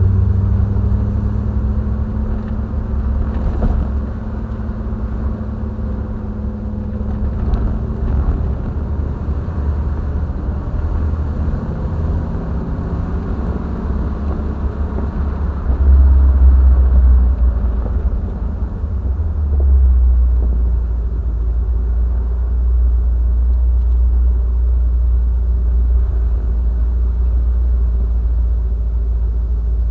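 Triumph TR7's 4.6-litre V8 running on the move, a steady low rumble whose engine note drifts in pitch. It swells louder about halfway through, then settles into an even drone.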